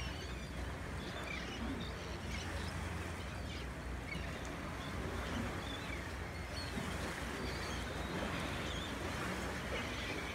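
Shrimp boat's engine running with a steady low hum, with many short bird chirps scattered over it.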